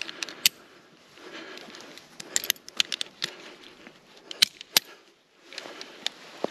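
Rustling with irregular sharp clicks and crackles, like gear and fabric being handled, with a brief near-silent pause about five seconds in.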